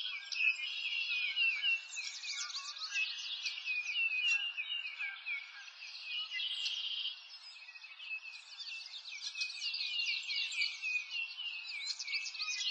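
A chorus of small birds chirping and twittering, many high, quick notes overlapping without a break, a little quieter for a second or two past the middle.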